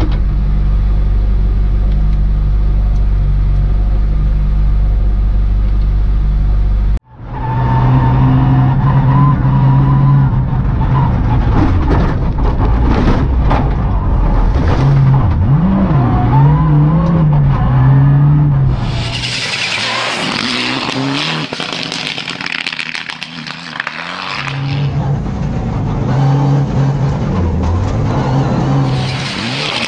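A steady low drone that cuts off suddenly about seven seconds in. Then a rally car's engine, heard from inside the cabin, revving up and down at speed on a snowy stage, with a loud rushing noise of tyres and snow against the car in the second half.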